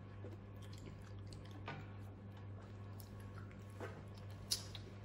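People chewing a mouthful of food, with a few soft, short mouth clicks over a steady low hum.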